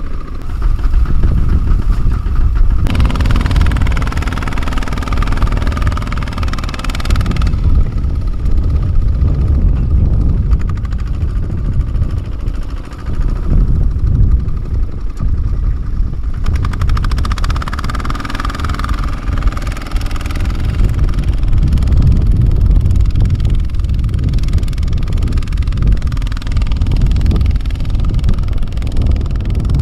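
A Kubota two-wheel walking tractor's single-cylinder diesel engine running steadily under load as it tows a trailer loaded with sacks of rice.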